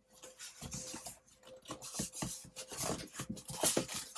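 Cardboard box and foam packing rustling and scraping, with irregular small knocks, as a mini fridge is pulled out of its shipping box.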